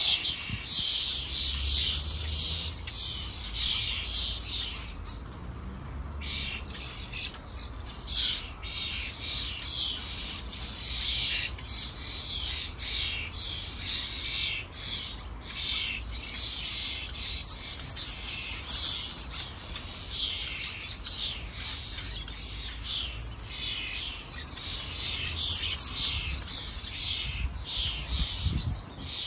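A flock of house sparrows chirping continuously, many short overlapping chirps and chatter with no pause.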